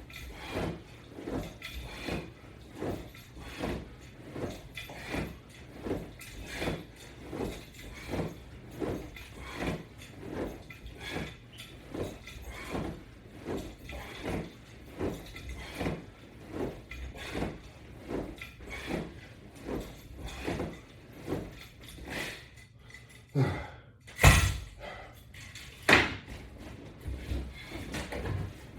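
A person doing fast crunch repetitions on a resistance-band setup, with a short sound on each rep at a bit over two a second. Near the end come three sharp knocks, the middle one the loudest.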